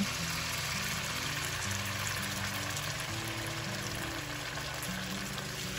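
Background music with steady held notes over a steady hiss of water added to a wok of hot fried chili paste.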